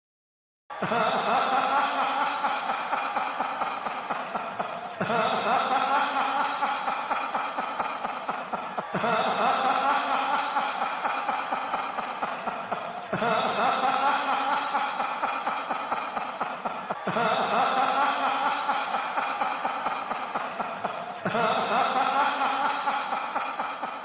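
A laugh sound effect looped: the same laugh, about four seconds long, starts a moment in and then restarts abruptly six times in a row, each repeat a quick run of pulses.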